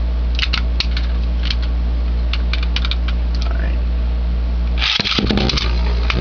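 A few light plastic clicks, then about five seconds in a Beyblade is ripped off its ripcord launcher with a short burst of noise and clatters into a plastic stadium, where it keeps spinning.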